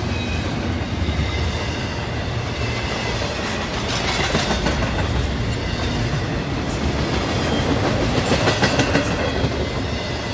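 Norfolk Southern freight train rolling past with a steady rumble and the clickety-clack of its wheels over the rail joints, growing louder about four seconds in and again around eight seconds.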